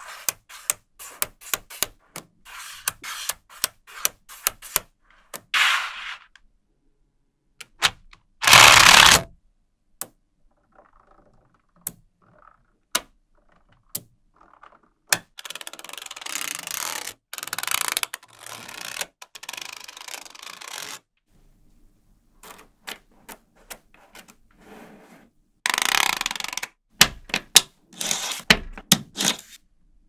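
Small magnetic balls clicking sharply as they snap together, with stretches of rattling and rubbing as sheets of the balls are slid, bent and pressed into shape, and a flat metal blade pressed along the rows. The loudest moment is a short, loud sliding rattle about eight and a half seconds in.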